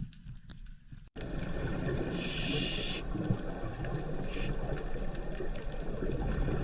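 Underwater sound: scattered faint clicks over a low rumble, then after a sudden cut about a second in, a steady dense water noise with short hissy surges.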